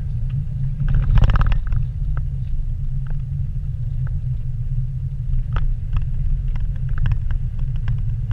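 Vehicle cabin noise while driving slowly on a dirt forest road: a steady low rumble of engine and tyres, with scattered clicks and knocks and a louder rattle about a second in.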